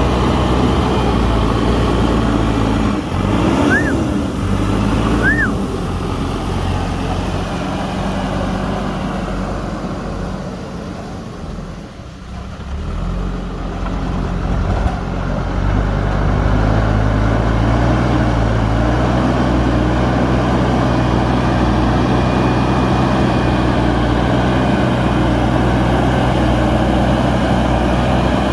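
JCB 3DX backhoe loader's diesel engine working under load, easing off to lower revs about halfway through and then pulling back up. Two short squeals sound near the start.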